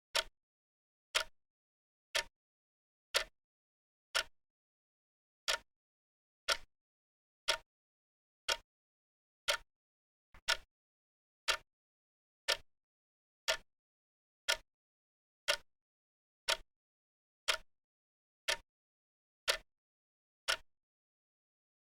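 Clock ticking: a single sharp tick about once a second, with dead silence between ticks.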